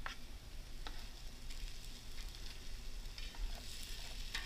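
Chopped chili and capsicum scraped off a cutting board with a spoon into a hot pan of frying kangaroo meatballs and bacon, the pan sizzling steadily. A few short scrapes of the spoon, about a second in and again near the end.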